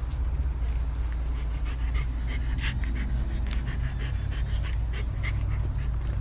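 Dog panting in quick, irregular breaths over a steady low hum.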